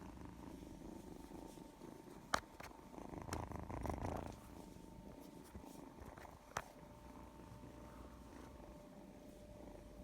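Domestic cat purring close by, a faint low rumble that swells for about a second a third of the way in. Two sharp clicks cut across it, the first louder.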